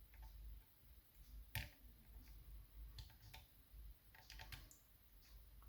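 Faint, scattered small metal clicks from lockpicking tools working the levers inside a lever mortice lock, the sharpest about a second and a half in.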